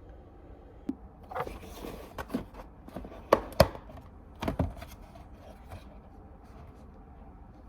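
A handful of irregular knocks and clunks from objects being handled, the loudest two close together about three and a half seconds in.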